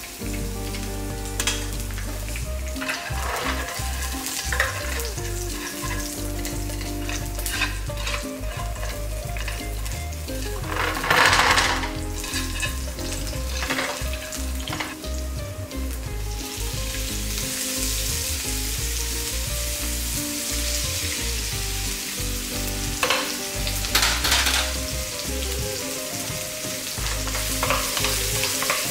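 Sliced garlic and then minced pork sizzling in hot oil in a nonstick frying pan while being stirred. The sizzle grows louder and brighter a little past halfway, with a few sharp knocks of the utensils against the pan.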